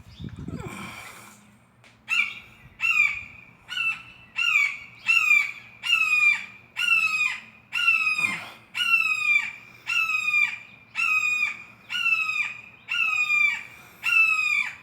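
A hawk calling loudly over and over: a long series of short, high, down-slurred screams, about one and a half a second, starting about two seconds in.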